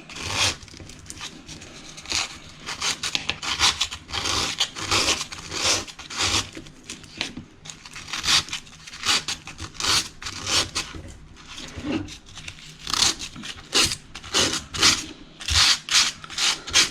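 Emery cloth sanding around the circumference of a PermAlert AGW Plus leak-detection cable in repeated short rubbing strokes.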